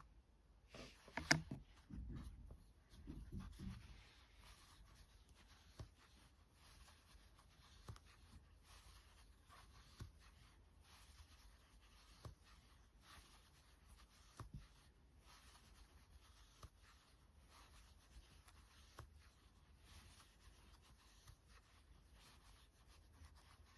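Faint, soft rustling and small clicks of a metal crochet hook working aran yarn into single crochet stitches, with a sharper tick about a second in.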